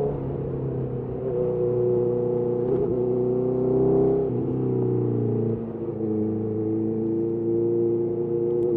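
Honda CBR650R's inline-four engine running under way through a Mivv MK3 carbon exhaust, its pitch holding fairly steady, then stepping down about four seconds in before settling again.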